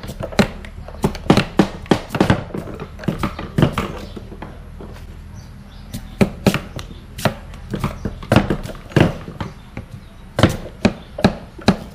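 Hand blades chopping and knocking on wood and bamboo pieces: a run of sharp, irregular knocks from several workers at once, some in quick clusters.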